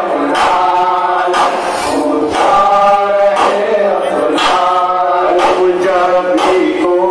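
Male voices chanting a Muharram nauha (lament) in chorus, amplified through horn loudspeakers, with a sharp rhythmic beat about once a second.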